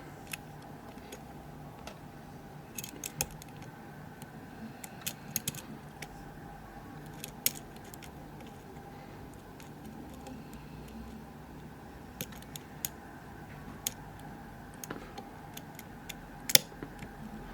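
Faint, irregular metallic clicks and ticks of a lock pick and tension wrench working the spring-loaded security pins inside a Kibblock euro lock cylinder. The clicks are scattered, with one sharper click near the end, over a faint steady hum.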